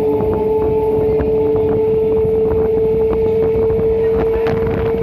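Departing train running past, its wheels clicking over rail joints, with a single loud steady tone held throughout over the rumble of the running gear.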